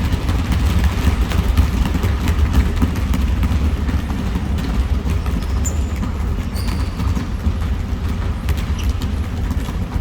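Steady low rumble of a gym during basketball play, with scattered knocks and a few brief high squeaks about the middle.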